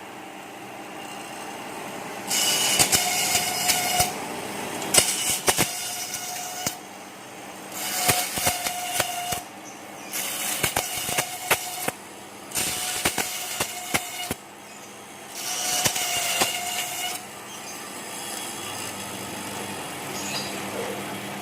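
Satay-skewer slicer and double planer with an 11 hp single-phase motor running with a steady hum, broken by about seven loud, rasping cutting passes of one to two seconds each with sharp clicks, as stock is fed through its blades.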